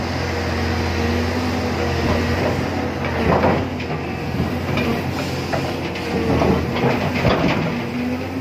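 Hitachi log-loading excavator's diesel engine running steadily, with bursts of wooden clattering and knocking as logs in the grapple bump together, about three seconds in and again from about six to seven and a half seconds.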